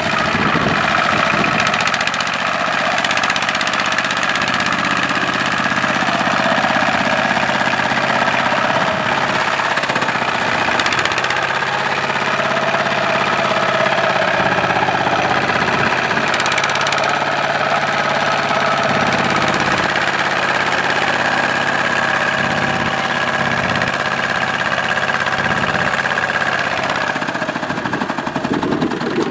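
A two-wheel walking tractor's single-cylinder diesel engine running continuously while it hauls a loaded rice trailer through mud.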